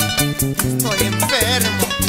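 Bachata music in an instrumental passage: guitars and bass over a steady, fast percussion pulse.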